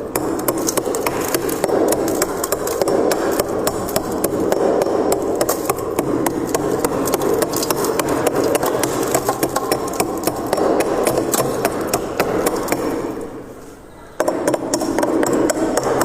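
Close-up crunching of ice being chewed, a dense rapid crackle that fades out about thirteen seconds in and starts again sharply a second later.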